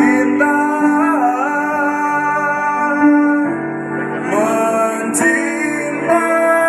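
A man singing a slow song with long held notes over backing music, amplified through a PA system.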